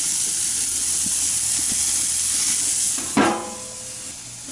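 Bacon-wrapped chicken thighs sizzling on the hot grate of a Camp Chef sear box, a steady hiss of searing fat. About three seconds in there is a brief louder sound as the lid is shut, and the sizzle then turns quieter and muffled.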